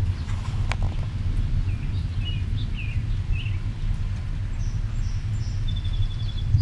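Steady low rumbling of wind on the microphone, with small birds chirping a few times in the middle and a short, quick trill near the end.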